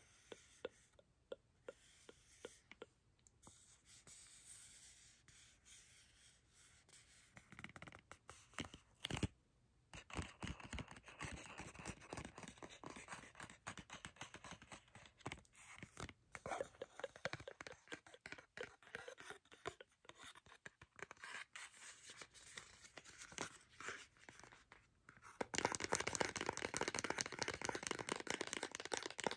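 Fingernails tapping and scratching on a cardboard mascara box, heard close up. It opens with separate taps about two a second, then turns into a long run of quick scratching and clicking, which grows louder and denser near the end.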